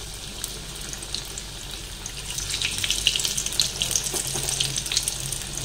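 Alu vadi, gram-flour-coated colocasia leaf slices, deep-frying in hot oil in a wok: a steady sizzle with dense crackling that gets busier in the second half as another slice goes into the oil.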